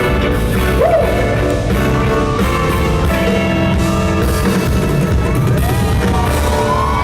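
Loud live rock-style band music with electric guitar and drums, playing steadily; high gliding whoops from the crowd begin to rise over it near the end.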